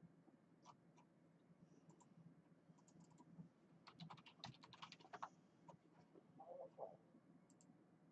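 Faint computer keyboard typing: scattered keystrokes, with a quick run of them about four to five seconds in.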